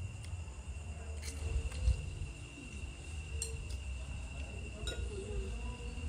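Metal spoons clinking now and then against soup bowls during eating, over a steady high whine, with a dull low thump about two seconds in.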